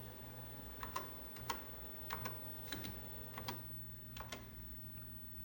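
Keys of a TRS-80 Model 4 keyboard being pressed: about ten separate clicking keystrokes at an uneven pace, some in quick pairs, over a steady low hum.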